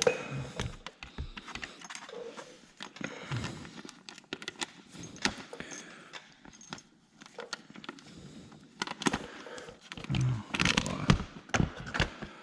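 Irregular metal clinks, taps and rattles of bolts and a radiator brace being handled and fitted on a dirt bike, with a denser, louder run of knocks about ten seconds in.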